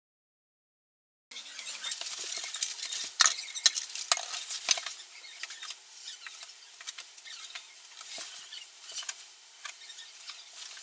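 Dead silence for about a second, then irregular small crackles, clicks and rustles of hands working silicone sealant along the joint between a bathtub and a vinyl plank floor.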